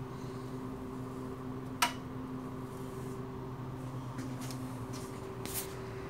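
Refrigeration unit of a walk-in egg chiller running with a steady low hum, with one sharp click about two seconds in.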